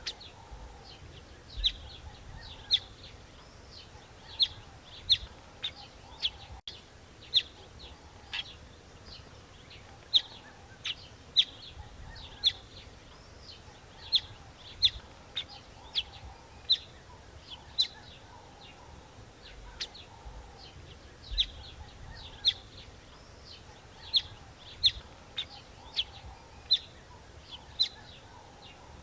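A small bird chirping: short, sharp, high notes repeated irregularly, about one or two a second.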